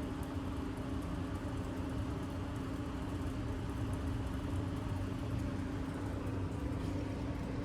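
A steady mechanical hum with a constant low tone, like a motor running continuously.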